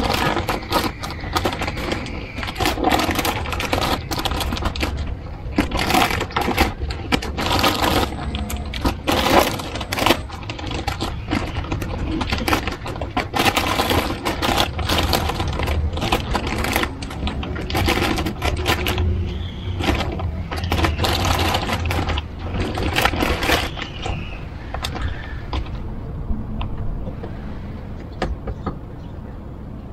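Adhesive vinyl advertising sticker being peeled off a car's painted door by hand, giving a dense, irregular crackling and rustling that thins out near the end.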